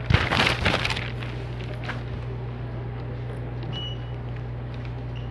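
Paper advertising flyer rustling and crinkling as its pages are handled, for about the first second, then a steady low hum.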